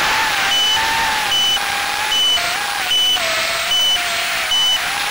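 3-inch FPV quadcopter at rest, its EMAX RS1408 3600KV brushless motors whining at a low idle that wavers slightly in pitch, while its buzzer sounds a short high beep about every 0.8 seconds.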